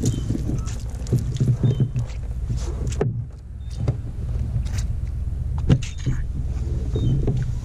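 A baitcasting reel being wound in over a steady low rumble. About three seconds in the rumble drops, and sharp clicks and knocks follow as the squid jig is lifted out and handled.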